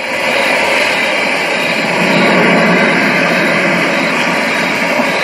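A loud, steady rushing roar with no clear pitch that swells slightly about two seconds in.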